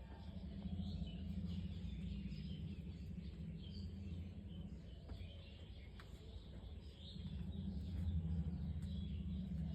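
Pigeons cooing low in two long spells, with small birds chirping faintly in the background.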